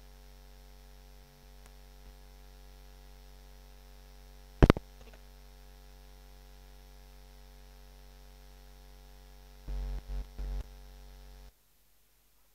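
Steady electrical mains hum from the stage sound system, with a sharp click about four and a half seconds in and three low thumps near the end, after which the sound cuts out abruptly.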